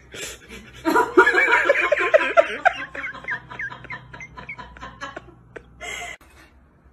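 A person laughing hard in quick, rapid pulses that trail off into breathy giggles. A short rustling noise comes near the end.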